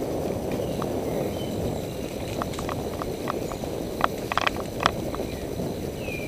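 Action camera rattling loose in its bicycle mount, clicking and knocking over the steady low rumble of the ride; the wedge that held it steady has fallen out. The sharpest cluster of rattles comes about four to five seconds in.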